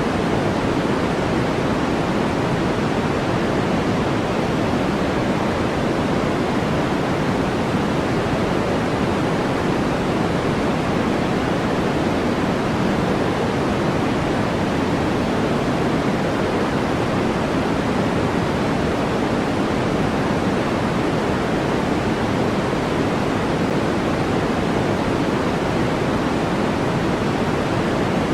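Steady, unchanging synthetic white noise: an even rushing hiss with its weight in the low-middle range.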